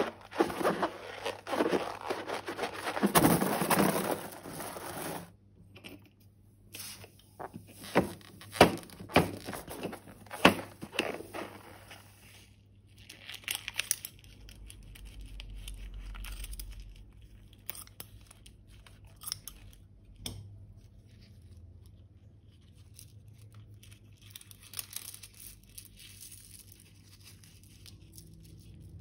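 Plastic piping bags and balloons crinkling and crackling as they are handled and squeezed out for slime. The crackling is dense for about the first five seconds, then comes as separate sharp crackles and thins out toward the end.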